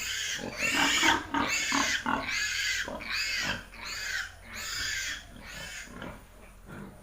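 Piglet squealing in a run of short, shrill squeals, about two a second, growing fainter toward the end: the distress squeals of a young piglet just held by the ear for a vitamin injection.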